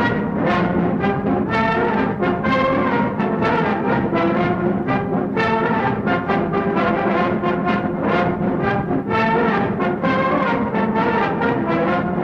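Brass band playing a military march with a steady, regular beat.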